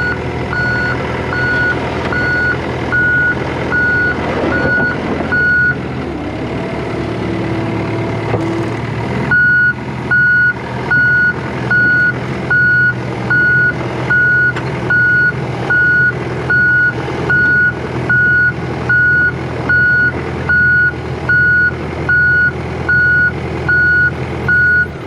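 Backup alarm beeping steadily, about one and a third beeps a second, over a running engine. The beeping stops for about four seconds roughly a quarter of the way in, then starts again and keeps going.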